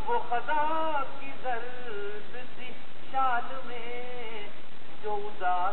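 A man sings a ghazal into a handheld microphone: several sung phrases with sliding, ornamented notes and short breaks between them.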